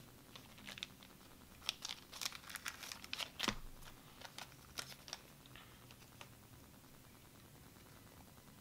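Plastic card sleeves crinkling and clicking as trading cards are handled and slid into sleeves: a scatter of small sharp rustles and taps over the first five seconds or so, then only faint room tone.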